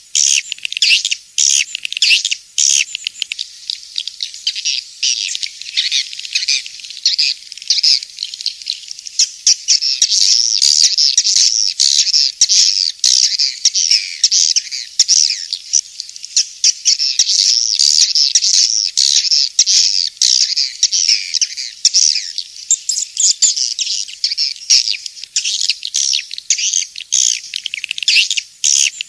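Edible-nest swiftlets calling: a dense, unbroken chorus of rapid, high chirps and twitters. It is a swiftlet-calling lure track, of the kind played to draw swiftlets into nesting houses.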